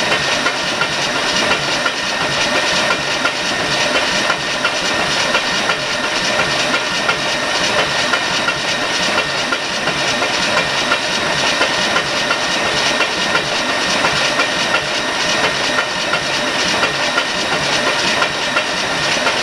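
Starter motor cranking a truck engine over continuously without firing, a steady whirring with a rapid rhythmic chatter. The engine is being spun only to prime its oil system, and oil has not yet reached the top end.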